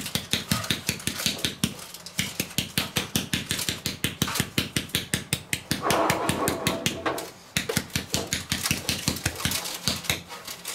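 Metal powdered-sugar shaker being shaken and tapped over cookies, a fast run of light taps, about six a second, with short breaks about two seconds in and again near seven and a half seconds.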